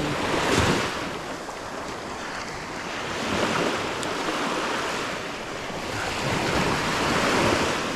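Small surf breaking and washing up the beach, swelling and fading three times, with wind rumbling on the microphone.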